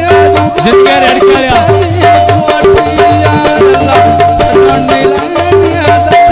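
Punjabi goon mahiye folk music: fast, steady percussion under a long held melodic note, with a pitch-bending melodic line in places.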